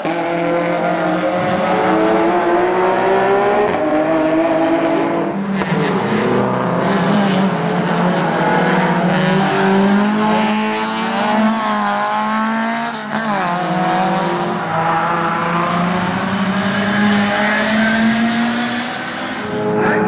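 Race cars' engines at full throttle, passing one after another: a Porsche 911 GT3 first, then a Renault Clio race car. Each engine's pitch climbs steadily as the car accelerates, with a few quick drops and rises in pitch near the middle as gears change.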